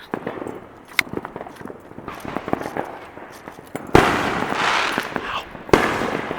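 Fireworks popping and crackling, with a sharp bang about a second in, then a loud bang about four seconds in followed by a long crackling fizz, and another loud bang near the end.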